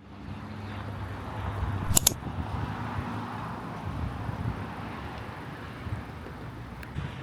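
Steady low rumble of a motor vehicle with a hiss of background noise. Two sharp clicks come about two seconds in, and a fainter one near the end.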